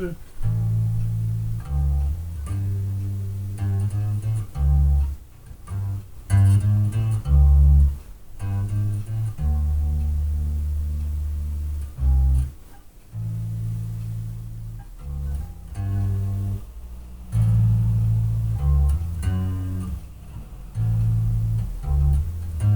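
Electric bass guitar through a bass amp playing a walking blues line: single plucked low notes stepping up and down the neck, some short and some held for a second or two, with short breaks between phrases.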